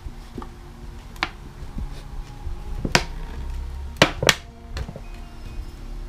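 Paint-remover container being handled over a bird cage's base: four sharp clicks and knocks, the last two close together, over a low steady hum.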